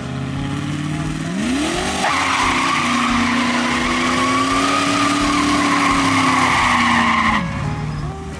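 Foxbody Mustang doing a burnout. The engine revs up from idle about a second and a half in, and the rear tyres squeal steadily for about five seconds at high revs. Near the end the revs drop back to idle.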